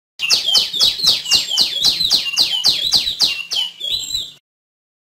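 Female tiểu my bird calling: a quick run of about fourteen sharp notes, roughly three a second, each sweeping down in pitch. The run lasts about four seconds and stops abruptly.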